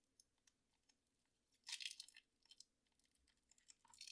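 Faint handling noise of a watch and its packaging: a short crinkling rustle a little under two seconds in, with scattered light clicks and ticks around it.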